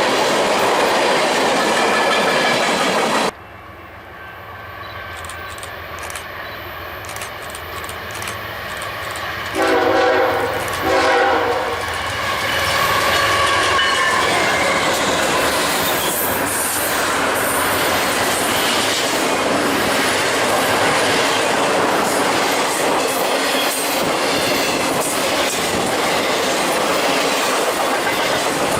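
Loud train noise cuts off suddenly about three seconds in. An approaching train's locomotive then sounds its multi-tone air horn in two blasts, and the train rolls past with steady wheel noise and clickety-clack over the rail joints.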